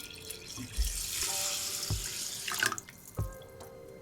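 Water poured from a measuring cup into a pot of rinsed rice. It makes a splashing pour starting about a second in and lasting about two seconds, then fading.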